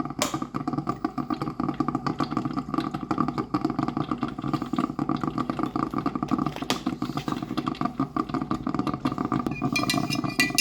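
A small motor running with a steady hum. Near the end a spoon clinks and rings against a mug.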